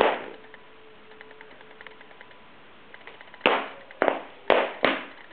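Small child's shoes stomping on a wooden floor: one loud thud, then after a pause four quick stomps in a row, each ringing briefly in the room.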